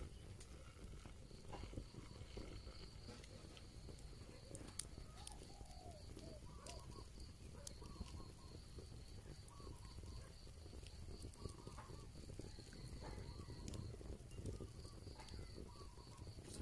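Faint rural ambience: an insect's steady high pulsing trill, with scattered short bird calls through the middle and a few light crackles from the wood fire.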